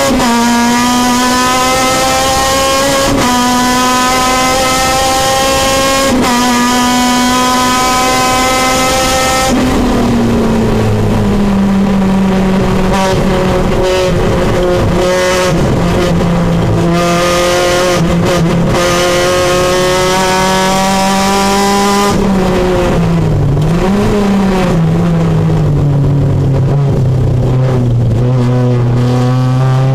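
Supercharged Honda K24 four-cylinder engine of a Civic race car, heard from inside the cabin, running hard at high revs, its pitch climbing with brief breaks every three seconds or so. About ten seconds in the note falls as the car slows and then holds lower and steady through the corners; it drops again about two-thirds through and climbs as the car accelerates near the end.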